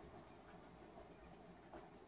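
Very faint, steady rain hiss close to silence, with a few soft ticks of drops.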